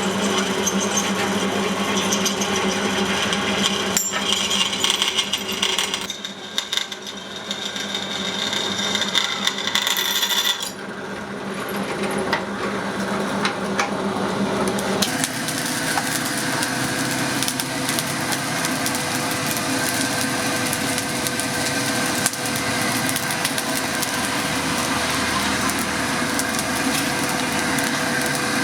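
Electric power tool running steadily while working the spring-steel blade, its tone changing a few times as the work shifts, settling into a steady hum near the middle.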